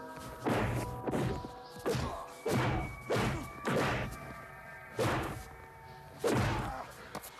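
Heavy movie punch sound effects: a run of about eight blows landing, some in quick pairs, over a sustained music score.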